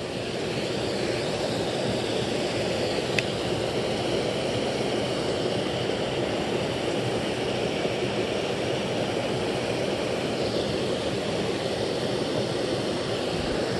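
Small creek cascade rushing steadily over a logjam into a pool, with one small click about three seconds in.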